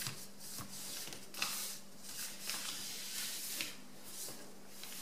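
A sheet of A4 paper rustling and scraping under the fingers as it is folded in half and the crease pressed flat, in several short, faint rubs.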